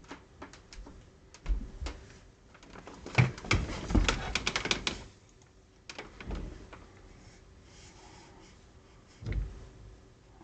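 Irregular clicks and low knocks, close by. A dense run of rapid clicks and thumps lasts a couple of seconds in the middle, then a few scattered knocks follow.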